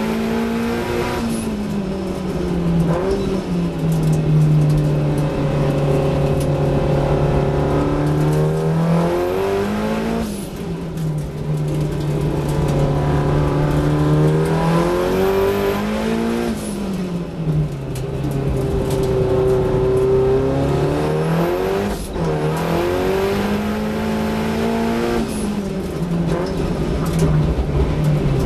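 Race car engine heard from inside the cockpit at racing speed. Its pitch holds steady for several seconds at a time, then rises and falls again, about four times, through the gear changes and corners of the lap.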